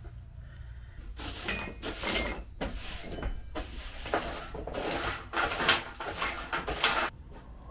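Broom sweeping wooden drill cut-outs and sawdust across an OSB plywood floor into a dustpan, in a series of short sweeping strokes.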